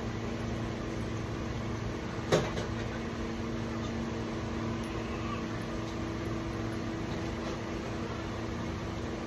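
Steady electrical hum with a low buzz, and one sharp click about two seconds in.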